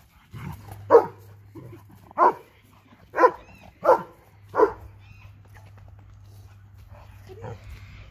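A dog barking five times in the first half, one short sharp bark roughly every second, then stopping.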